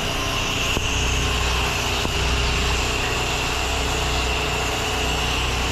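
Pressure washer engine running steadily under load while water sprays from the gun, rinsing the house down; a constant hum with an even hissing whine over it.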